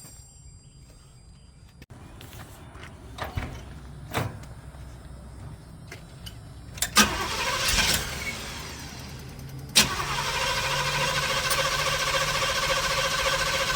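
1986 Chevrolet El Camino engine being started: a few sharp clicks and clunks, a burst of noise about seven seconds in, then from about ten seconds in a loud, steady running sound.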